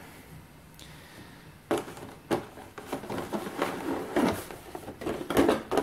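Hands handling a thin black plastic insert tray that holds miniatures, making irregular clicks and rustles from about two seconds in.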